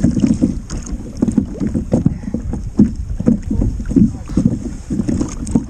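Wind rumbling on the microphone, with water slapping against a kayak's hull in irregular knocks.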